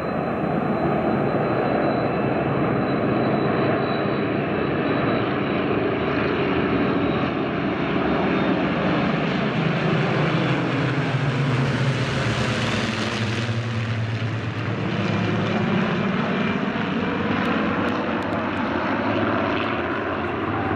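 The massed engine drone of a large formation of Second World War piston-engined fighters flying over. The sound is steady and loud, growing brightest about twelve seconds in as the formation passes overhead, with the engine pitch bending as it goes by.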